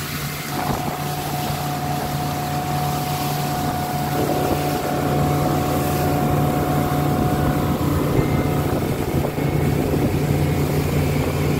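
Motor fishing boat running at speed: a steady engine drone under the rush of water along the hull and wake, with wind on the microphone. A thin steady whine sits over it for most of the run.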